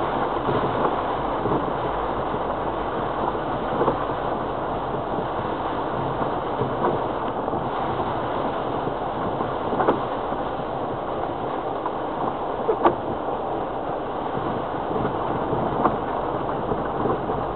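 Steady in-cabin running noise of a Land Rover Freelander TD4's four-cylinder turbodiesel and its tyres on a rough, wet dirt track, with a few short knocks as it goes over bumps.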